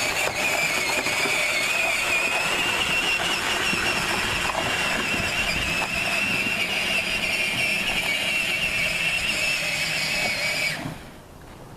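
Grave Digger 24-volt ride-on monster truck's electric drive motors and gearboxes whining as it drives, rising in pitch as it gets up to speed and then holding steady. The whine cuts off abruptly near the end when the pedal is released.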